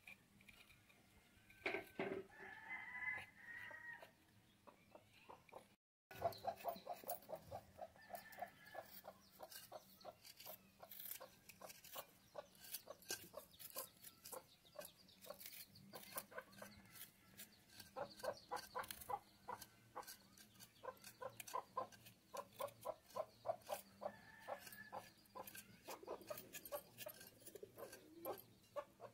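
Quick repeated scraping of curved hand blades against small roots as they are peeled, stroke after stroke, with chickens clucking.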